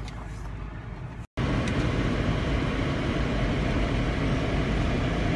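Steady engine and road noise of a car driving, heard from inside the car. It follows a brief dropout about a second in, before which there is a quieter outdoor background.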